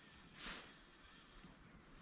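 Near silence, with one short, soft hiss about half a second in.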